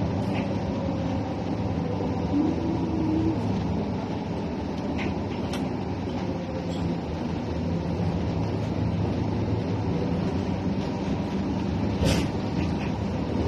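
Steady low rumble of a moving vehicle, with a few brief clicks and squeaks.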